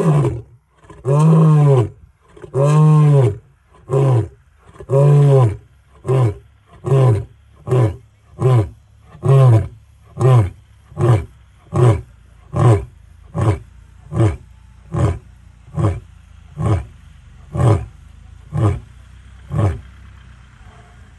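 Male lion roaring: a few full roars of about a second each, rising and falling in pitch. These give way to a long series of short grunts, about one every 0.8 s, that grow shorter and fainter toward the end.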